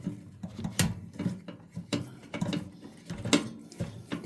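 Phillips screwdriver working a screw out of a microwave's metal housing by hand, with sharp clicks about twice a second.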